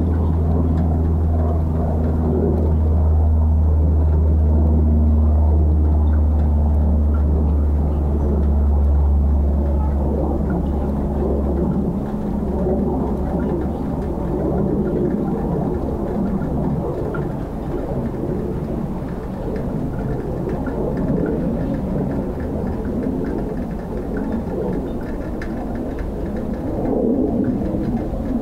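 1966 Aero L-29 Delfin jet trainer's single turbojet engine passing overhead: a loud, steady rumble that swells and fades in waves. A low steady hum underneath cuts off about twelve seconds in.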